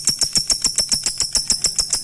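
Lovebird 'ngetik' calling: a fast, even run of sharp high-pitched chirps, about eight a second. This is the calling of a lovebird summoning a rival.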